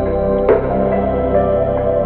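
Background music: slow ambient synth music with sustained chords and a brief accent about half a second in.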